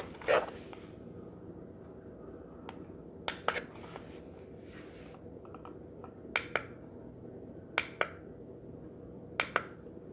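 Plastic buttons on a Timex battery alarm clock being pressed five times, each press a short double click as the button goes down and comes back up.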